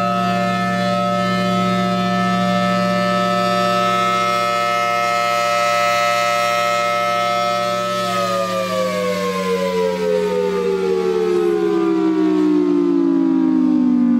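Thunderbolt 1000T rotating outdoor warning siren sounding a steady alert tone, then winding down about eight seconds in, its pitch falling slowly as the rotor slows at the end of a short alert test.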